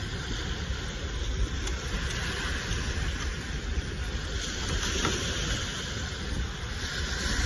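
Ocean surf washing onto the beach, a steady hiss that swells twice, with wind rumbling on the microphone.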